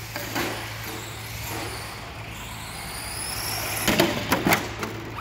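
Arrma Senton Mega 4x4 RC truck with a brushed electric motor, its motor and drivetrain whirring and rising and falling in pitch as it runs and jumps over the dirt. About four seconds in, a quick run of sharp knocks and clatter as the truck hits something close by.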